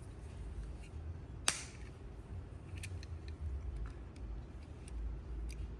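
Hand cutters snipping through a Hot Wheels car's wheel or axle, with one sharp snap about a second and a half in. A few faint clicks of handling follow.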